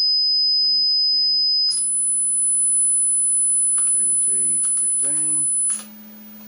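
Loudspeaker driven by a Brüel & Kjær Type 2706 power amplifier playing a steady sine test tone at 5 kHz. It switches with a click to 10 kHz about two seconds in, then near the end to 15 kHz, which is much fainter and which he can no longer hear. A low steady hum runs underneath.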